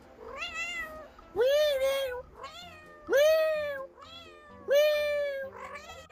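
A black house cat meowing over and over. There are three loud, drawn-out meows about a second and a half apart, each rising at the start and then holding, with shorter, softer meows between them.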